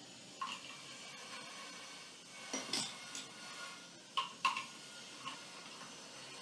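Scattered light metallic clicks and clinks of a small screw, washer and hand tool being handled while fastening the drying-fan turbine of a washer-dryer: a few single clicks, a short cluster near the middle and a sharp pair a little later.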